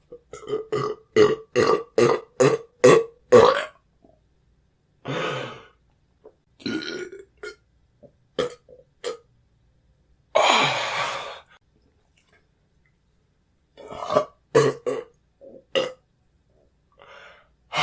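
Men burping: a quick run of about ten short burps in a row, then scattered single burps and one longer burp about ten seconds in.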